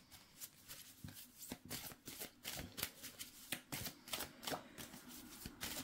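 A deck of cards being shuffled by hand: a faint, irregular run of soft card flicks and slaps, a few a second.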